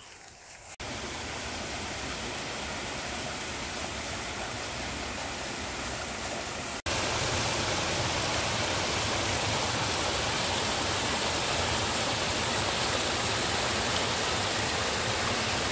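Water of a small rocky stream splashing down a little waterfall: a steady rush that starts about a second in, breaks off for an instant about seven seconds in and comes back louder.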